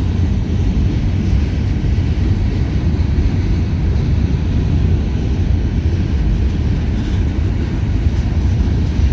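Loaded freight cars of a long, heavy train rolling past on the rails: a loud, steady rumble of wheels on track.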